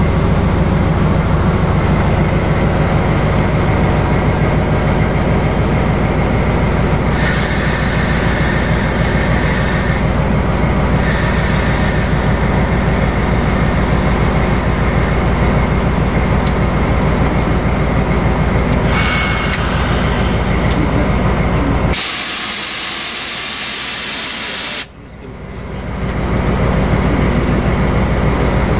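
Diesel engine of a TEP60 passenger locomotive running steadily, heard inside the cab, with several bursts of compressed air hissing from the driver's brake valve. A much louder hiss starts about three-quarters of the way through and cuts off suddenly.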